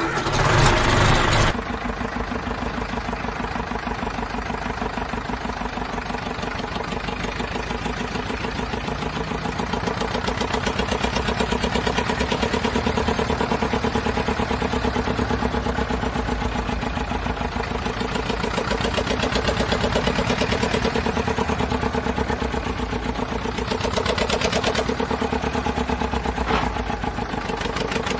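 Tractor engine running steadily with a fast, even chugging, after a louder burst in the first second and a half that sounds like it starting up.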